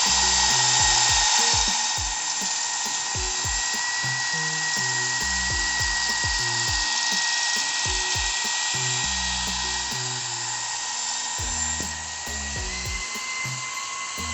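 A power tool running continuously with a steady high whine and hiss, its pitch stepping up slightly near the end. Background music with a bass line plays underneath.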